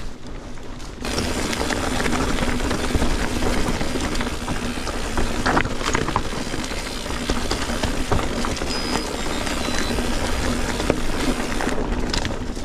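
Mountain bike rolling over rough, rocky trail on Maxxis Forekaster 29x2.20 tyres at low pressure: steady rear-hub freewheel ratchet buzz with tyre rumble and rattle, and a few sharp knocks from the bike over rocks. The noise cuts in suddenly about a second in and drops near the end.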